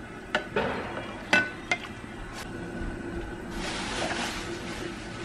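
A wooden spatula pushes braised tofu and glass noodles off a ceramic plate into a stone bowl. The plate and spatula clink against the bowl three times in the first two seconds, followed by a soft hiss of about two seconds as the food slides in.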